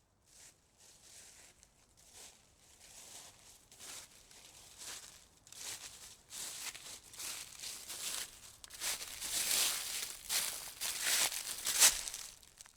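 Footsteps crunching underfoot, about two steps a second, growing steadily louder as they come closer, then stopping abruptly.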